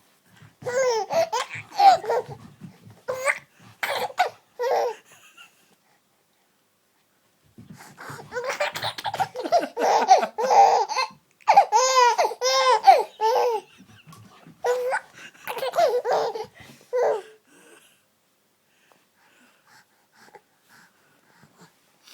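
A baby laughing in three bouts of rapid, high-pitched giggles, with a pause of a couple of seconds after the first.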